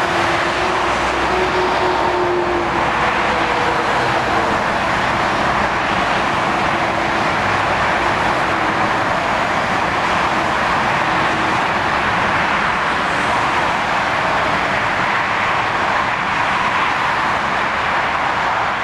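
Dense motorway traffic of heavy lorries and cars passing at speed: a steady, unbroken wash of tyre and engine noise, with a faint whine in the first few seconds.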